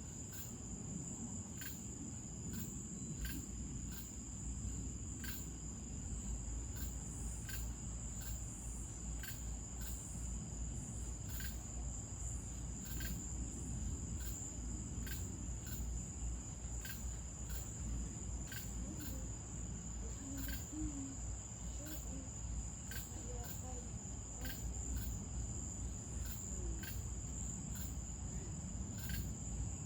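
Night insects: crickets keep up a steady high-pitched trill, with a shorter chirp repeating about once a second, over a low rumble.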